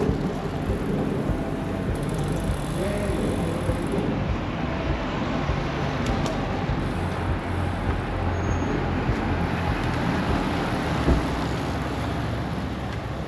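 Road traffic noise: a motor vehicle running steadily on the street, a continuous rumble that eases slightly near the end.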